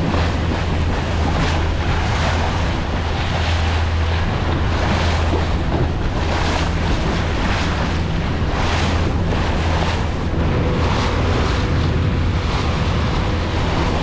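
Small open boat under way on its outboard motor: a steady low engine hum under the rushing splash of the hull through choppy water, with wind buffeting the microphone.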